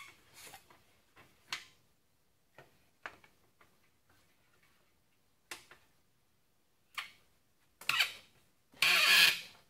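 Scattered light knocks and clicks as tools and a wooden strip are handled and clamped in the wooden jaws of a workbench. Near the end come two louder rasping scrapes, the second about half a second long.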